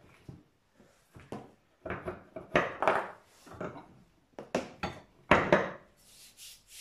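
Steel pipe being released from a bench-mounted pipe vise: the screw handle is turned, the hinged top swung open and the pipe lifted out. It makes a series of metal knocks and scrapes, loudest about halfway through and again near the end.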